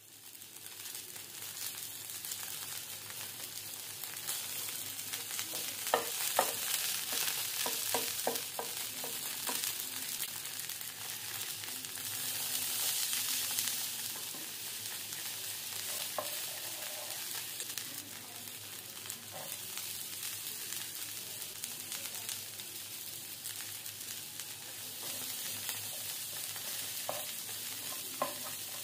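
Butter and oil sizzling steadily in a nonstick frying pan around browned chicken pieces. There is a run of light knocks about six to nine seconds in. Near the end a wooden spatula stirs chopped garlic through the hot fat, with a few more knocks.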